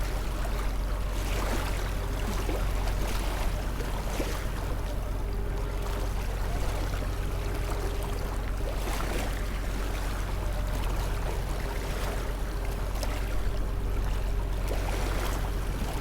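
Continuous ambient noise for sleep: a constant low hum under a hiss that swells and fades every second or two, with a faint steady tone.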